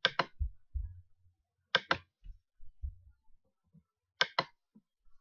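Computer mouse clicking: three quick pairs of clicks about two seconds apart, with a few soft low thumps between them.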